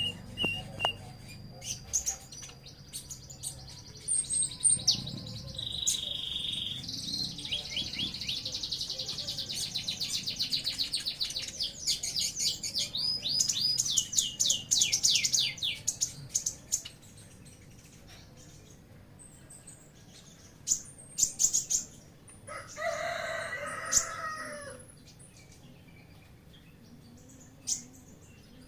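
Caged songbirds singing, with quick repeated chirps, trills and falling whistled notes, busiest in the first half. A rooster crows once about two-thirds of the way through.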